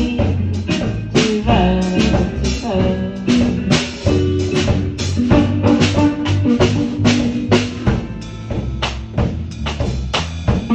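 Band music with a drum kit keeping a steady beat of kick, snare and rimshot hits over a moving bass line.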